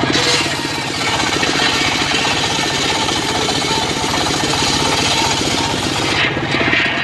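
Engine-driven circular saw ripping through a teak log: the engine runs with a steady rapid pulse under the hiss of the blade cutting. Near the end the cutting hiss changes, with a brief brighter swell.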